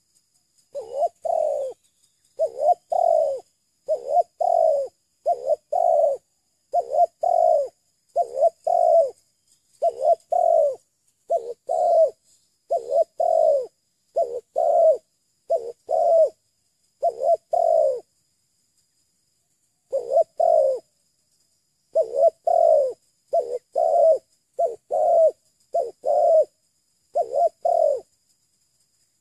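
Spotted dove cooing close to the microphone: a long run of low, hoarse coo notes, mostly in pairs, repeated every second or so, with one short pause part-way through.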